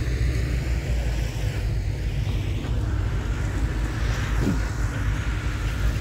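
Diesel engines of small crawler bulldozers and dump trucks running together as they push and tip dirt, giving a steady low rumble.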